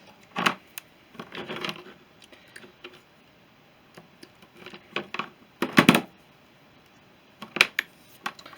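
Handling sounds of a twist tie being undone from a soldering iron's coiled power lead: scattered clicks and short rattles with pauses between, the loudest cluster about six seconds in.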